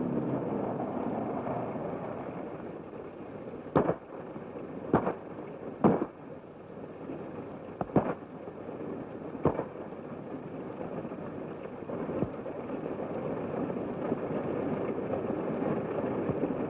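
About six sharp gunshots at irregular intervals, two of them close together near the middle, over the steady running of a motor-vehicle engine, heard through an old, hissy film soundtrack.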